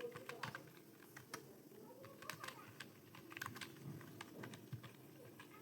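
Computer keyboard typing during a Hindi typing speed test: faint, irregular keystroke clicks, roughly two a second.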